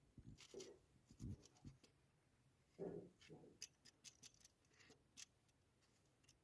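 Near silence with faint, scattered clicks and a few soft knocks of small handling sounds, the loudest about three seconds in.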